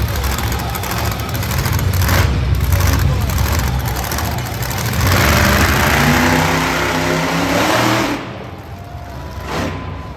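Monster truck engine running loud with a heavy low rumble, then revving hard for about three seconds from five seconds in, its pitch climbing, before it backs off and drops away about eight seconds in.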